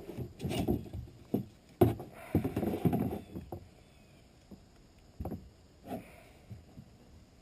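Knocks, thumps and scrapes of a freshly landed bass and fishing gear being handled, busiest in the first three seconds with a sharp knock about two seconds in, then a few scattered taps.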